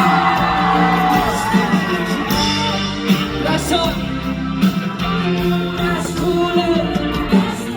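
Loud live performance of a rock-pop song: amplified band with guitar and bass, and sung vocals.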